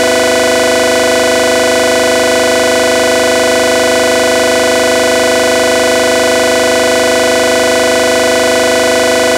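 Loud, steady electronic drone: a held synthesizer chord of many tones that stays unchanged, with no beat or pitch change.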